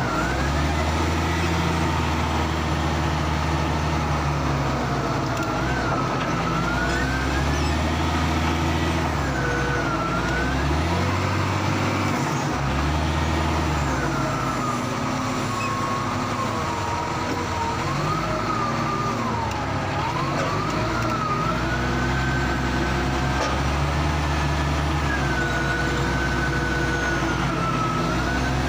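Diesel engine of a Cat 966G wheel loader working under load, its revs rising and falling several times. A high whine bends up and down over the engine throughout.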